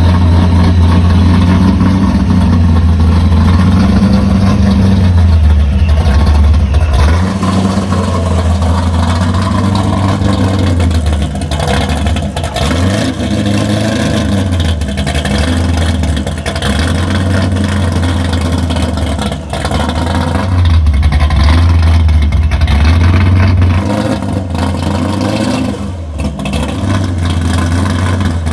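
Supercharged 8.2-litre (502 cubic-inch) big-block V8 of a 1970 Chevrolet Corvette C3 running at low speed with a deep, uneven beat. Its pitch rises and falls gently a few times as the car pulls away slowly.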